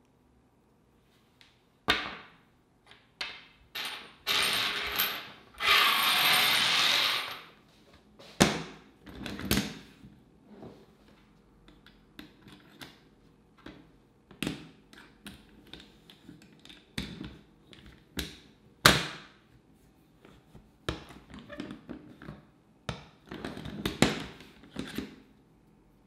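Skateboard parts being handled on a tabletop: a scatter of sharp clicks and knocks as Bones Swiss steel bearings, Bones STF urethane wheels and an Independent bearing press are picked up, fitted and set down. About four to seven seconds in there are two longer stretches of hissing noise.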